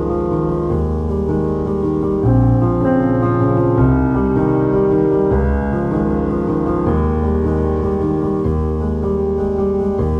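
Background piano music, held chords changing every few seconds.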